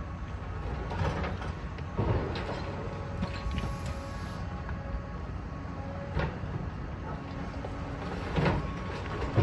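Heavy demolition machinery working: a steady low engine rumble with a faint steady whine, broken by scattered metallic clanks and knocks, about four in all.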